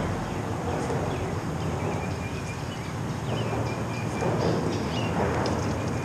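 Steady rumble of traffic on the highway bridge overhead, with a few faint high chirps over it.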